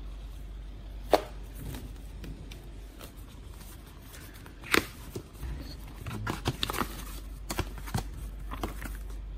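Paper leaflets and a card envelope being handled and unfolded, with crisp rustles and small taps, and a sharp knock about a second in.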